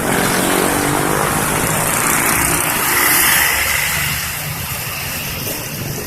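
Bus engine running as it drives past, with road noise, loudest about three seconds in and then easing off.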